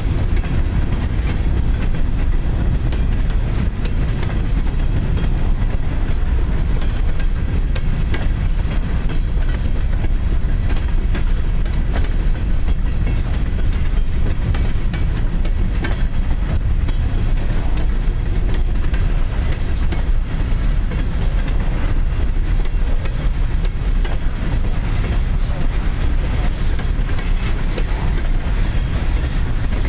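Covered hopper cars of a freight corn train rolling past close by: a steady rumble of steel wheels on the rails with frequent irregular clicks and clacks.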